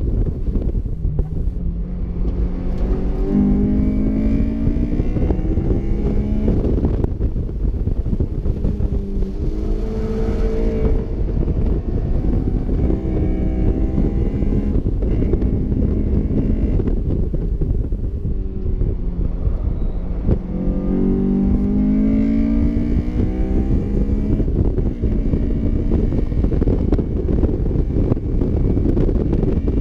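Honda S2000 AP1's 2.0-litre F20C four-cylinder engine under hard acceleration on track, its note climbing in pitch several times as it pulls through the revs and then dropping off, heard from the open cockpit under heavy wind buffeting.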